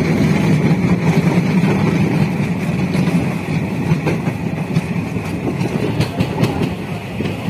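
Train running along the track: a steady low rumble with a high steady whine that fades about halfway through, and a few sharp clicks near the end.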